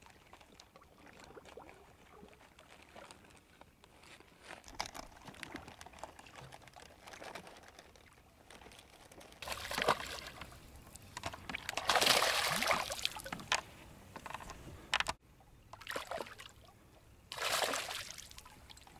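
A hooked bass splashing and thrashing at the water's surface beside the boat in three bursts after a quieter first half, the longest and loudest about two-thirds of the way through.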